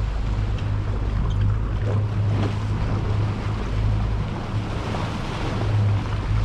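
Boat engine running steadily at trolling speed, a low even hum, with wind buffeting the microphone and water rushing past the hull.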